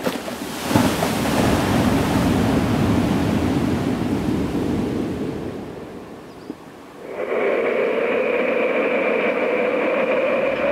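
Strong wind rushing across an open sand beach and over the microphone, dying away about six seconds in. About seven seconds in a steady drone with several held tones starts and carries on.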